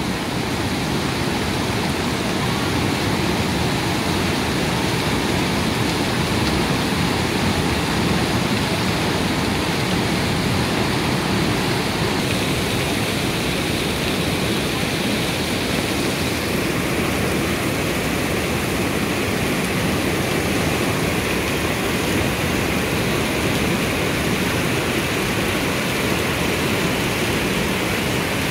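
Muddy floodwater of a rain-swollen hill stream rushing past in a loud, steady torrent.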